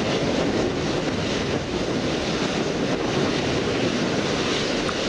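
Soyuz-U rocket engines during ascent, a loud, steady, even rushing noise with no distinct tones.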